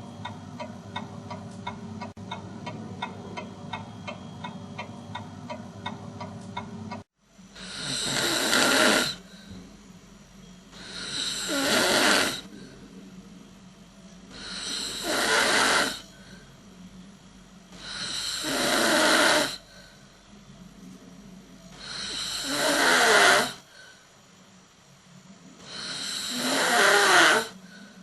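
Steady ticking for about the first seven seconds, then a person snoring loudly: six long snores about four seconds apart, each swelling louder and then stopping abruptly.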